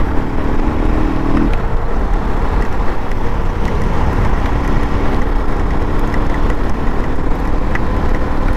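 KTM RC390's single-cylinder engine running at a steady, gentle cruise, under heavy wind rumble on a helmet-mounted phone microphone. The engine note drops away about a second and a half in and comes back about halfway through.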